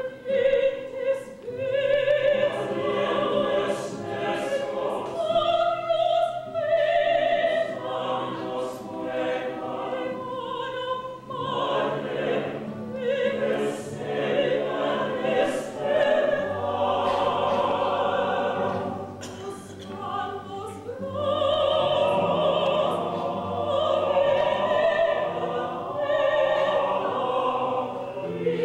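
A woman singing a solo in operatic style, long notes with a wide vibrato, over instrumental accompaniment.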